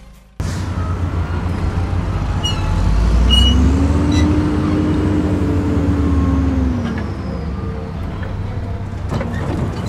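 A truck engine starts running steadily just after the start, with a crane winch whine that rises, holds for a few seconds and winds down as the crane lifts a car. A few short ticks come as the lift begins.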